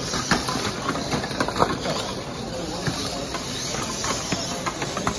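VEX competition robots driving during a match: a steady hiss of motors and room noise, with scattered sharp knocks as robots and plastic triballs hit the field and its walls.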